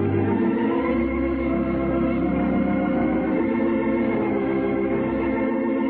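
Organ playing slow, sustained chords of a radio show's theme music, the bass note shifting about a second in. It is heard through a 1938 off-air radio recording with a dull, muffled top.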